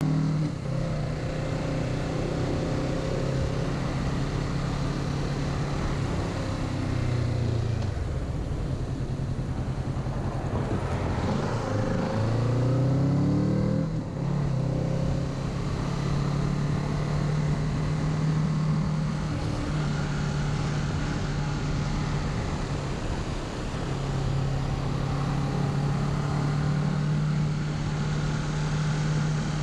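Kawasaki Z650's parallel-twin engine running under way. Its pitch climbs for a few seconds in the middle as the throttle is opened, then falls back and settles into steady running.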